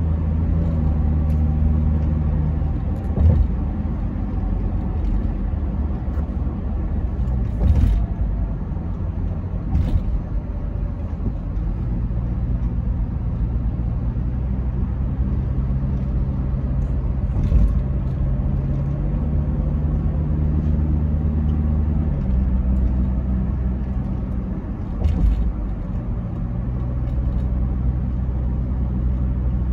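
Car driving at speed on an expressway: a steady low drone of engine and tyres, shifting pitch now and then, with a few short thumps spaced several seconds apart.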